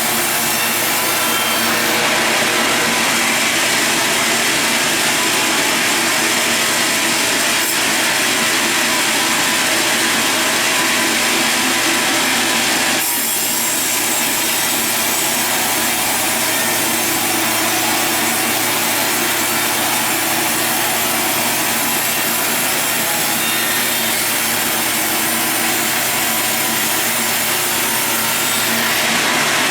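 Sawmill saw cutting steadily through a large log. The even cutting noise changes character about two seconds in and again about thirteen seconds in.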